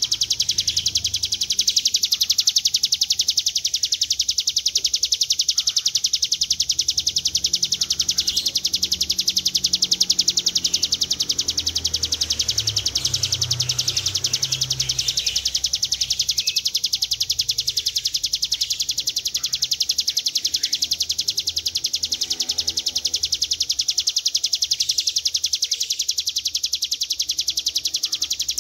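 Ciblek gunung (a prinia) singing its long 'ngebren' song: one high, very rapid buzzing trill held without a break.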